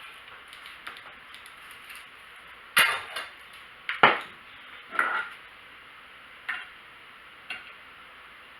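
Metal clinks and knocks of hardware and tools being handled while a fan is fitted to an ASIC miner: a few sharp clanks, loudest between about three and five seconds in, then two lighter ones, with small ticks in between.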